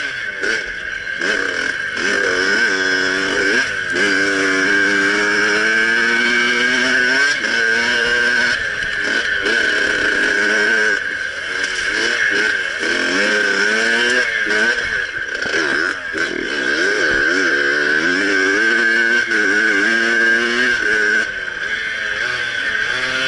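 Motocross bike engine being ridden, its pitch rising and falling over and over as the throttle opens and closes.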